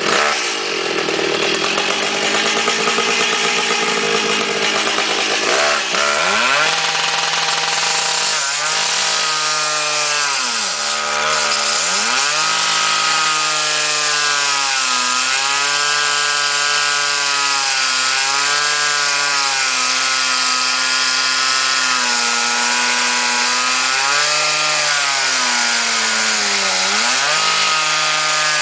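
Two-stroke engine of a gas-powered Makita cut-off saw running at full throttle while its abrasive disc grinds through the cast-iron drive housing of an old mowing machine. The engine pitch sags and recovers several times as the disc bites into the metal, most deeply about eleven seconds in and again near the end.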